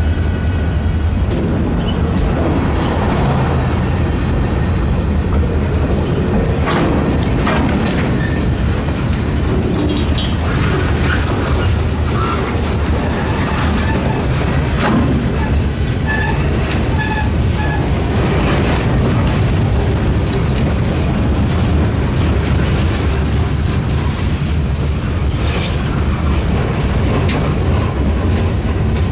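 Freight train cars rolling past at close range: a steady heavy rumble with scattered clanks and clicks of wheels on the rails.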